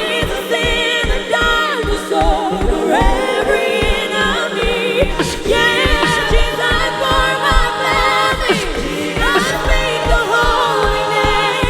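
Live gospel worship music: singers with heavy vibrato and sliding vocal runs, backed by a band with a steady beat in the bass.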